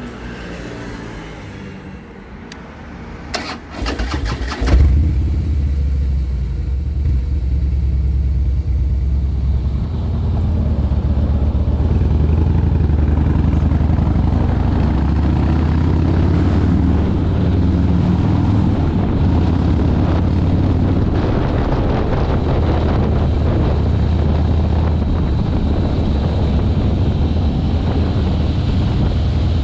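Harley-Davidson Fat Boy's V-twin engine starting about four and a half seconds in, then running with a deep, steady low rumble as the motorcycle is ridden on the road.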